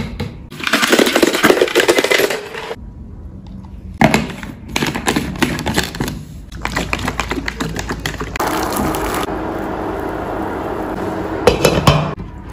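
Kitchen handling sounds: a burst of clinking and splashing from glass, ice and liquid, then a run of sharp plastic clicks and rattles as a lid is fitted onto a plastic drinks jug, and a few clinks near the end as a glass pot lid is handled.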